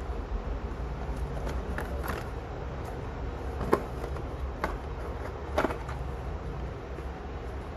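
Handling of a phone's box and packaging: scattered clicks and taps, the sharpest about four and five and a half seconds in, over a steady low rumble.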